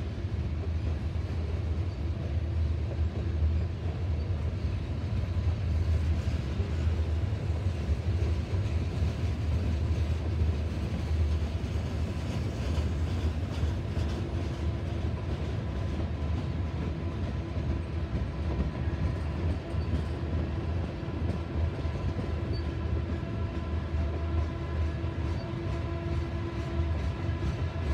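Freight cars of a long manifest train rolling past on an upgrade: a steady low rumble of steel wheels on rail. A faint steady whine joins in over the last third.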